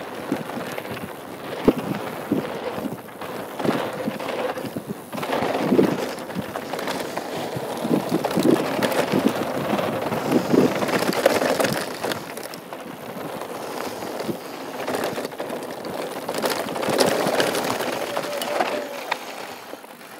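2013 Norco Truax mountain bike descending a dirt and gravel trail at speed: tyres rolling over the ground with a steady rush, and many short rattles and knocks from the chain and frame over bumps.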